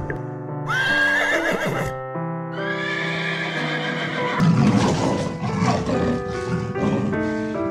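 A horse neighing: a high, wavering whinny about a second in, then a second, rougher neigh, followed by harsher noisy sounds. Background music with steady piano notes plays under it.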